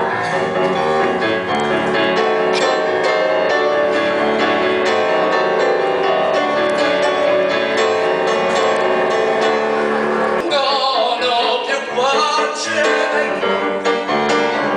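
Upright piano playing continuously, joined about ten seconds in by a man singing into a microphone.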